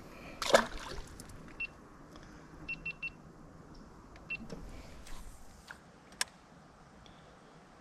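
A knock about half a second in, then a few short high electronic beeps at one pitch, three of them in quick succession about three seconds in, with a sharp click near the end.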